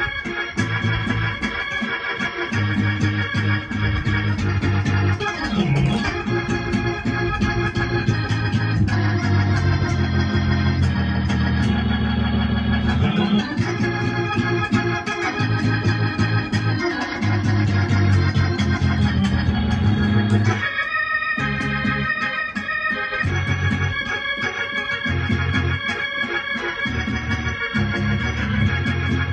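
Electronic keyboard played in a gospel praise style: sustained chords over held bass notes, changing every second or two, with a brief lighter passage about two-thirds of the way through.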